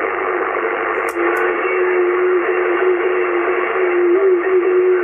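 HF receiver audio from a Yaesu FT-840 shortwave transceiver: steady static and interference hiss. About a second in there are two short clicks, and then a low, steady whistle comes in and holds, wavering slightly, over the hiss.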